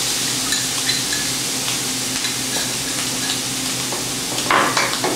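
Chopped pork sausage, garlic, onion and freshly added red bell pepper sizzling in olive oil in a stainless steel sauté pan: a steady frying hiss with small crackles. A brief louder sound comes about four and a half seconds in.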